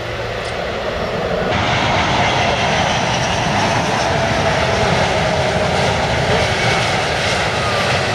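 Airbus A380's four jet engines on landing approach: a steady, loud rush with a thin whine over it. About a second and a half in, a quieter distant jet sound cuts abruptly to this louder approach noise.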